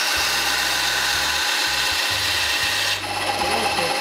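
Benchtop bandsaw cutting through plywood: a loud, steady hiss of the blade running through the wood that begins suddenly and changes, easing slightly, about three seconds in.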